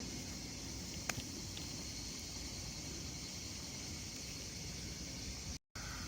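Steady outdoor background hiss with a single sharp click about a second in.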